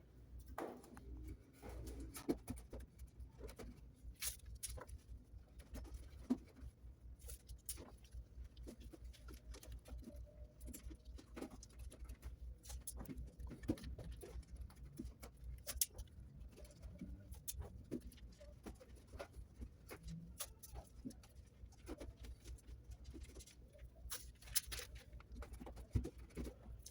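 Faint, irregular crackles and clicks of adhesive tape being unrolled and pressed around a chimney pipe, over a low steady rumble.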